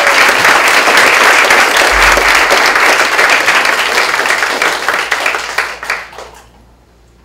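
An audience applauding, with dense clapping that tapers off and dies away about six seconds in.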